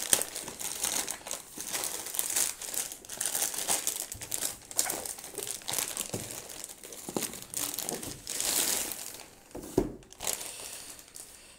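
Plastic mailing bag crinkling and rustling as it is pulled open and a cardboard box is slid out of it. There are a couple of knocks about ten seconds in, and the rustling thins out near the end.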